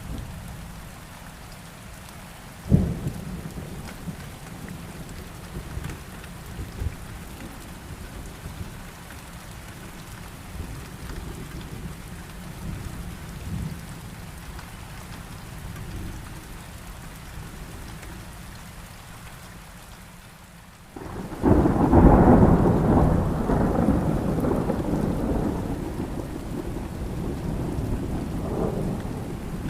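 Steady heavy rain through a thunderstorm. A sharp thunderclap comes about three seconds in, and a long, loud rumble of thunder breaks in about two-thirds of the way through, then slowly fades.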